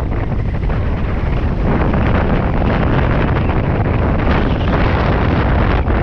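Wind buffeting the microphone of an action camera mounted on a hang glider in flight: a loud, steady rushing rumble of airflow.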